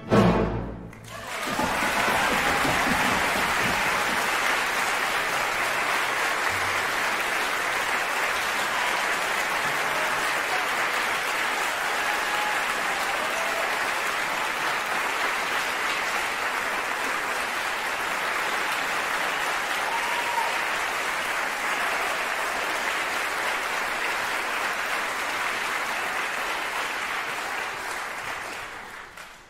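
An orchestra's closing chord stops about a second in, and a large theatre audience breaks into steady applause that fades out near the end.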